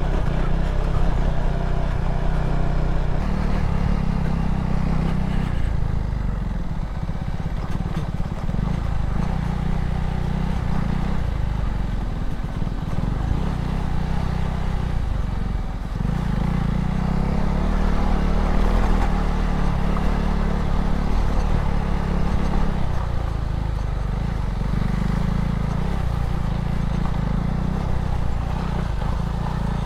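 Motorcycle engine running as the bike is ridden, its pitch shifting a few times with the throttle, under a steady rush of noise.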